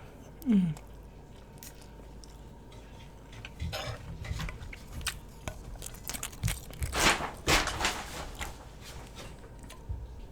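Close-up eating sounds: a person biting and chewing food, with irregular crunches that come thickest about seven to eight seconds in. A short voice sound falling in pitch comes about half a second in.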